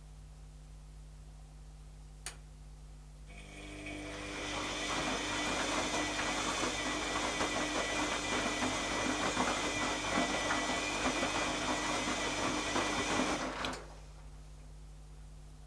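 Zanussi ZKN7120L washing machine running: a single click, then a mechanical whir that builds for a couple of seconds, holds steady for about ten seconds, and cuts off suddenly near the end.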